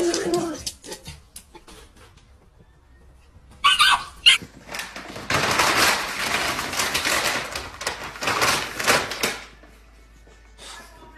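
A dog barks at the start. About four seconds in come a couple of short sharp sounds. Then a bulldog puppy drags and shakes a plastic bag on a wooden floor, and the plastic crinkles and rustles for about four seconds.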